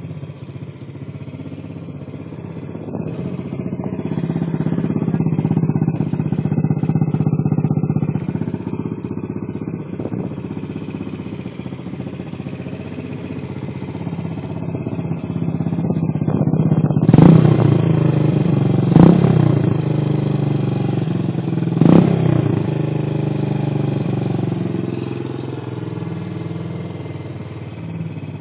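Yamaha Crypton K motorcycle's single-cylinder four-stroke engine running through an aftermarket Roncar oval aluminium exhaust. It runs steadily, then is blipped three times in quick succession about two-thirds of the way through.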